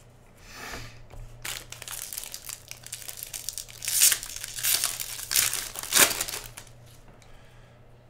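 Silver foil trading-card pack being torn open and crinkled by hand: a run of crackling foil rustles, loudest about four seconds and six seconds in, then dying away.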